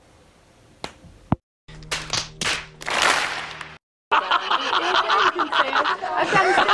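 An old man laughing heartily over the last two and a half seconds. Before that come two faint clicks and a few short, sharp bursts.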